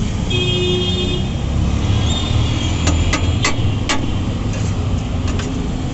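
Busy city street traffic rumbling steadily, with a short vehicle horn toot about half a second in and a few sharp clicks around three seconds in.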